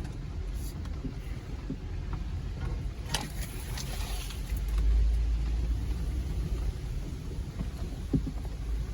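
Low rumble of a 2020 Jeep Gladiator Rubicon's 3.6 Pentastar V6 and drivetrain crawling a trail, heard from inside the cab, with a few knocks and creaks over the rough ground. The rumble swells about five seconds in.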